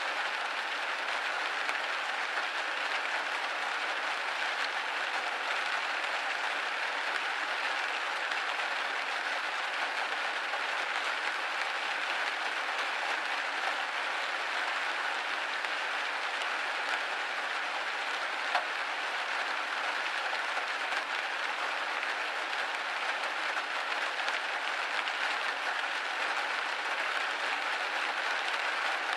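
Rain pattering steadily on a window pane: a dense, even patter with no lulls or gusts.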